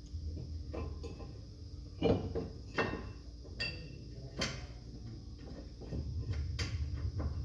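Hand tools and brake parts being handled during brake work: a series of separate sharp metallic clicks and knocks, the loudest about two seconds in, over a low steady hum.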